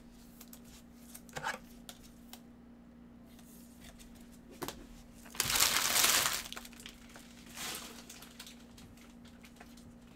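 Empty foil trading-card pack wrappers crumpled and swept up by a gloved hand: one loud rustle of about a second midway, a shorter one a second or so later, and a few light handling clicks before it. A faint steady hum runs underneath.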